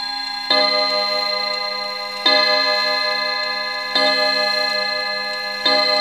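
Mantel clock chime striking four slow, evenly spaced strokes about a second and a half apart, each ringing on and fading until the next.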